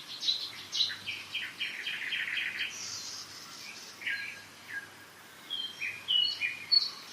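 Several songbirds singing in a spring forest. A quick run of about eight repeated notes comes in the first few seconds, then scattered short whistles and chirps follow, over the steady rush of a mountain river.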